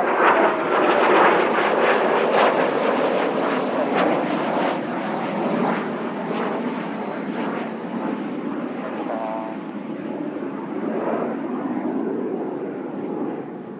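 Blue Impulse Kawasaki T-4 jets passing, their twin turbofan engines making a loud jet roar with a falling whine at the start. The roar fades over the last few seconds as the jets move away.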